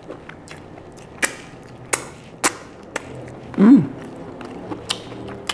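Boiled lobster claw shell giving sharp clicks and snaps, several times, as the meat is pulled out of it by hand. A little past the middle comes the loudest sound, a short hummed 'mm' that rises and falls in pitch.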